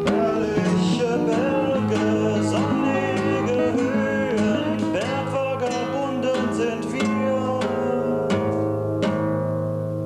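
Acoustic guitar picked by fingers with a man singing over it. Near the end the voice stops and the last guitar notes ring out and fade.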